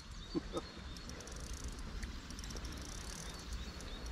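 Quiet outdoor background: a faint steady hiss with soft, repeated high chirps, and two brief faint sounds about half a second in.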